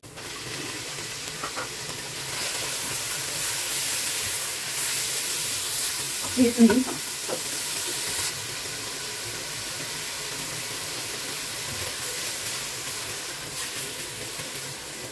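Minced mutton sizzling as it fries in vanaspati ghee with chopped onions, stirred and scraped with a spatula in the pot. The sizzle is strongest for the first several seconds after the meat goes in, and a brief burst of voice cuts in about six and a half seconds in.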